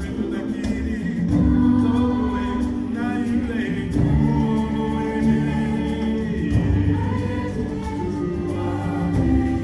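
A choir singing held, sustained chords, the notes shifting every second or two, heard in a large hall.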